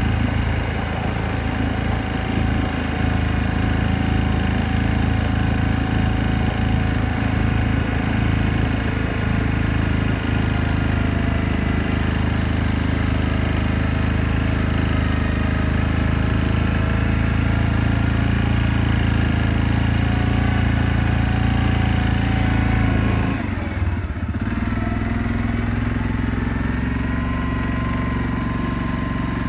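Yamaha Grizzly ATV engine running steadily under way. About 24 seconds in it eases off to a lower, quieter note and keeps running.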